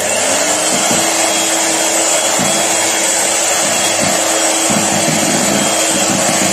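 Kenwood electric hand mixer running steadily, its beaters whipping milk into creamed butter, sugar and eggs in a plastic bowl.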